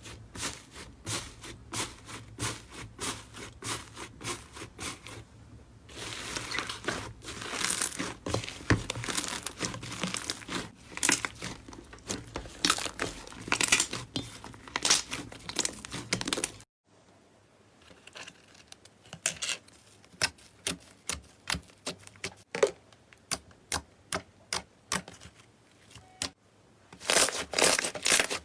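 Hands squeezing and pressing slime, making repeated clicking and crackling pops, about two a second at first and more densely in the middle. A little after halfway the background hiss drops away and the pops come sparser, with a dense burst of them near the end.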